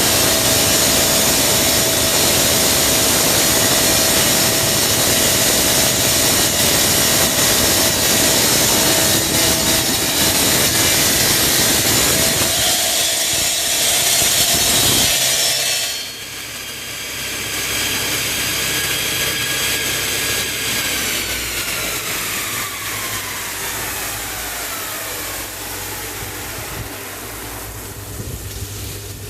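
Stone-cutting machine sawing through stone with a loud, dense grinding noise. About halfway through the cutting noise cuts off and the motor runs on alone, then winds down with a falling whine.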